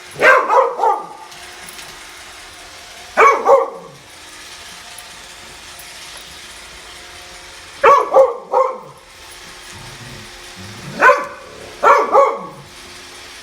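Doberman barking in short bouts of two to four deep barks, five bouts in all, over the steady motor hum of a running Roomba robot vacuum.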